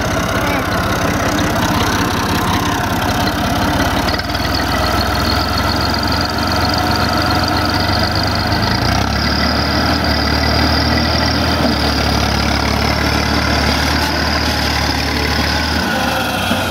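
Tractor engine running steadily under load as the tractor drives its front wheel up out of a rut. The engine note steps up about four seconds in and again about nine seconds in, then falls back shortly before the end.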